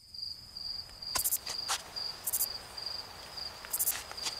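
Crickets chirping in a steady, pulsing high trill, with brief higher-pitched buzzes recurring every second or so and a few sharp clicks, the loudest about a second in.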